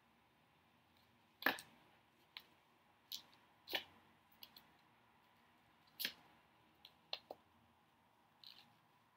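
A deck of tarot cards being handled in the hands, with cards drawn and flicked out one by one. It makes a scattering of faint, irregular clicks and snaps, the loudest about a second and a half in.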